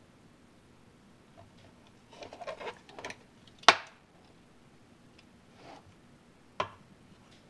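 Loose parts and casing of an opened Solectria DC750 DC-DC converter being handled: a short spell of clinking and rattling about two seconds in, a sharp click near the middle, and another click about a second before the end.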